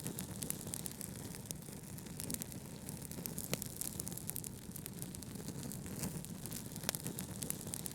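Wood fire crackling with many small pops and a couple of sharper snaps, over a steady low rumble of brown noise.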